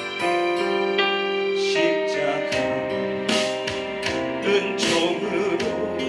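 Korean gospel song: a man singing long, held notes into a microphone over piano and keyboard accompaniment.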